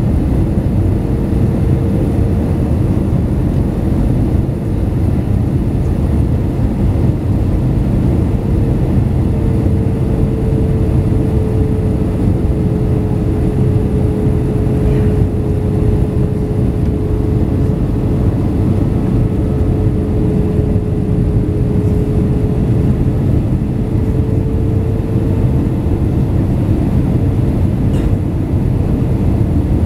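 Steady low rumble of a jet airliner on its landing approach, with a constant hum above it and no rise or fall in level.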